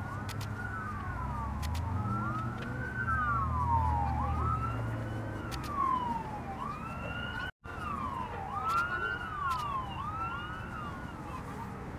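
Several sirens wailing at once, their pitch rising and falling in overlapping sweeps, over a low steady hum that fades out about five seconds in. The sound cuts out for a split second about halfway through.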